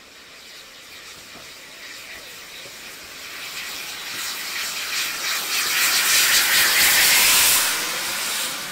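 Ex-GWR 0-6-2T steam tank locomotive working a passenger train: a steady steam and exhaust hiss that builds up and is loudest about six to seven seconds in, as the engine passes close beneath, then begins to fade.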